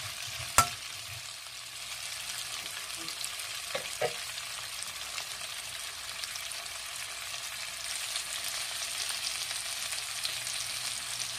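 Vienna sausages and chopped vegetables sizzling steadily as they sauté in a nonstick frying pan, with a utensil knocking sharply on the pan under a second in and twice more, lightly, about four seconds in.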